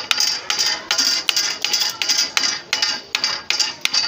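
Rapid metallic clanking, about four strikes a second, each with a short bright ring: metal parts of a handpump knocking together during repair.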